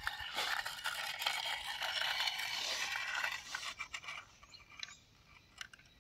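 Toy crawler crane's small electric winch motor and plastic gears running, a gritty whirring scrape with many small clicks for about three and a half seconds, then dying away to a few faint clicks.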